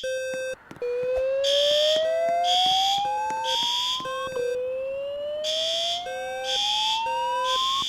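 Fire alarm evacuation signals between voice announcements: a slow whoop tone rising in pitch twice, each sweep about three and a half seconds. Under it, alarm horns pulse in the temporal-three pattern, three short blasts then a pause, and a lower tone pulses on and off.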